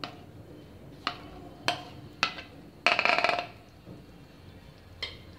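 Sharp knocks and clinks against a bowl as ground coriander-leaf paste is tapped and scraped out of it into a frying pan: a few single knocks spread about half a second to a second apart, a short rattling scrape about three seconds in, and one more knock near the end.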